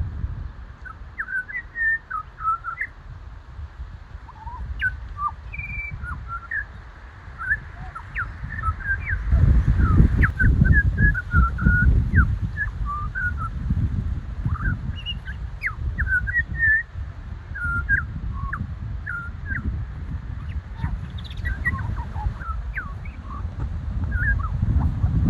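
Many small birds chirping and whistling in quick, short notes, over a low rumble that swells in the middle and again near the end.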